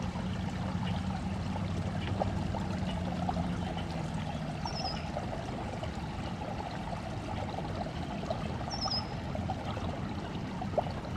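Water trickling steadily over a small rocky dam. Two brief high bird chirps come about four and nine seconds in.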